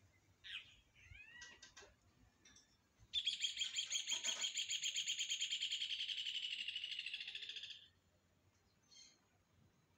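A bird singing: a few short chirps, then a long, rapid, high-pitched trill of about five seconds starting about three seconds in.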